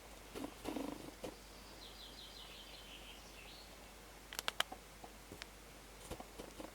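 Garden birds: a short low call, then a small bird's quick descending run of high notes, followed by three sharp clicks and a few fainter ones near the end.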